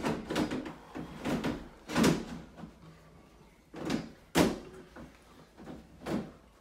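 Irregular clunks and knocks from a Freedom Breeder reptile rack's stacked sections as the top section is jiggled and pressed down onto a stuck alignment pin. There are about seven knocks, the loudest about two seconds in and just after four seconds.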